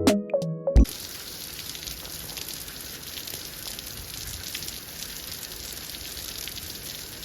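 Keyboard background music ends about a second in, giving way to a steady hiss full of fine crackles.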